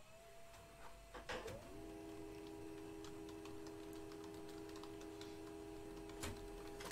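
A few scattered clicks and taps, the loudest about a second in and again near the end, over a steady hum of several tones that comes in about two seconds in.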